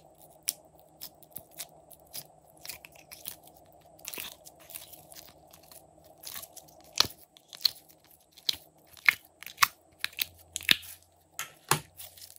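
Fingers squishing and pulling pink slime out of a plastic tray, making sharp, irregular wet pops and crackles as air pockets burst. The pops come thicker and louder in the second half.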